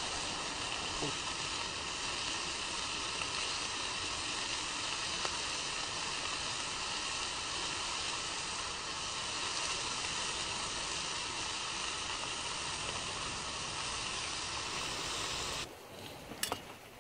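Bacon-wrapped chicken breast sizzling in a frying pan over a wood fire: a steady frying hiss that cuts off abruptly about a second before the end.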